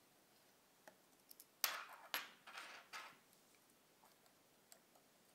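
A thin metal tool clicking and scraping in the notches of the front lens retaining ring of a Minolta Hi-Matic 7s rangefinder camera. A few faint ticks, then four short scrapes between about a second and a half and three seconds in.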